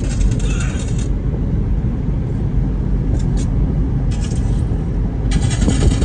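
Car driving along a road, heard from inside the cabin: a steady low rumble of engine and tyres. A hiss on top fades out about a second in and comes back near the end.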